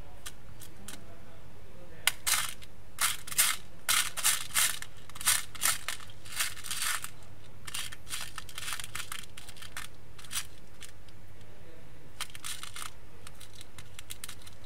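Irregular sharp clicks and light clatter of small hard parts being handled, screws and plastic pieces of an opened PS4 disc drive, coming thick and fast for several seconds and then scattered, over a steady low hum.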